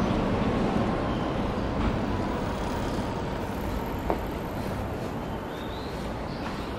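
Road noise of a vehicle going by on the street, fading slowly away, with a single light click about four seconds in.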